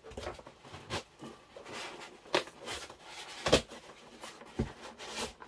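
Hard foam packing insert being worked out of a snug cardboard box: foam scraping and rubbing against the cardboard, with scattered knocks, the loudest about three and a half seconds in.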